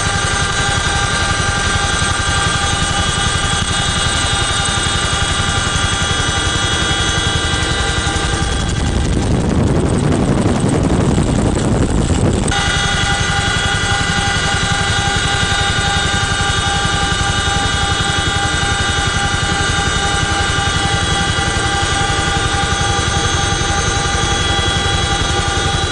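Helicopter in flight heard from inside the cabin: a steady, loud rotor and engine noise with a layered, high whine of gearbox tones. For about four seconds near the middle a louder low rush of wind covers the whine, then the steady whine returns.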